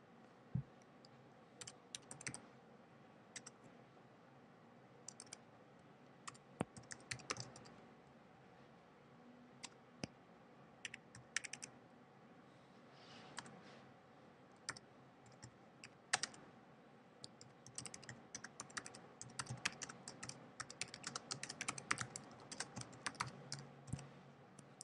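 Computer keyboard being typed on, faint, in short irregular bursts of keystrokes that grow into a dense run of typing over the last several seconds.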